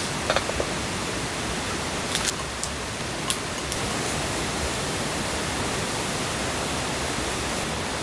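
Steady, even rushing noise, with a few light clicks and knocks in the first few seconds as the tabletop brazier and its grill plate are handled.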